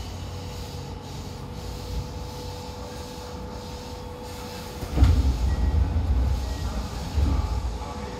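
TRTA 7000 series subway train running, heard from inside the car: a steady rumble with a constant hum. About five seconds in, a knock starts two or three seconds of louder wheel-on-rail rumble, which then eases back.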